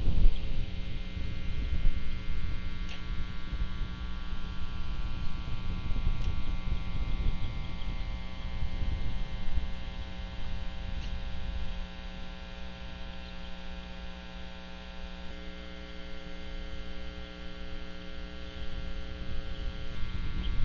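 Steady electrical mains hum, a stack of even tones, picked up in the nest camera's audio, over a low uneven rumble. A few faint ticks come through.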